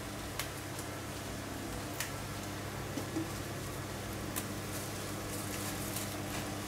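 Steady low background hum with a few faint, scattered clicks as fresh flat-leaf parsley leaves are picked off their stems by hand and dropped onto a wooden cutting board.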